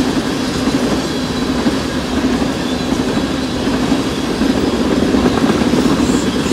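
Freight train tank cars rolling past close by at speed: a steady rumble and rattle of steel wheels on the rails, swelling a little near the end.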